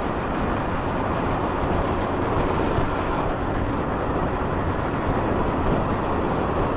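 Suzuki 1200 Bandit's inline-four engine running at a steady cruise on the road, under steady wind rush on the microphone.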